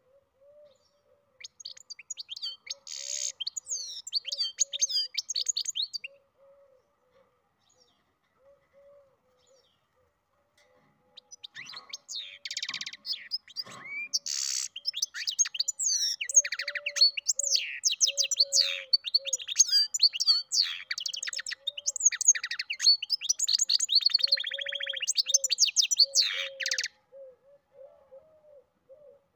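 Goldfinch × canary mule singing: a short phrase of rapid twittering and trills, then after a pause of several seconds a long, unbroken run of fast, varied song.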